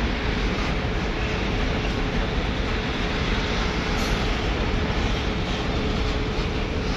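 Train running: a steady rumble of wheels on track with a single steady tone above it.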